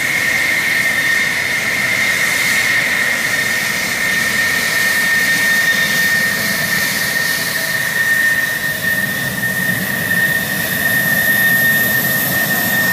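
F-16 Fighting Falcon jet engine running at taxi power: a steady high whine over a broad, even rush of engine noise.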